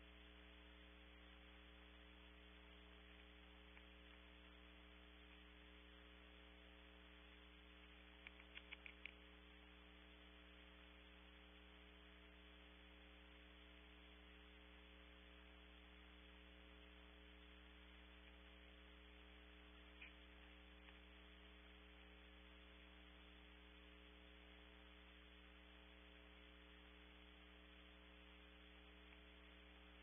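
Near silence: a steady electrical mains hum with hiss from the camera's audio line. A quick run of about five faint clicks comes about eight seconds in, and another faint click comes near twenty seconds.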